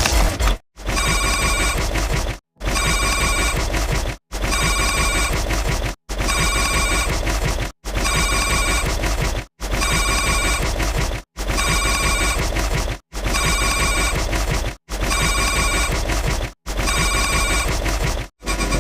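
Telephone ring sound effect: a trilling electronic ring repeated about ten times, each ring about a second and a half long with a short silent break between rings.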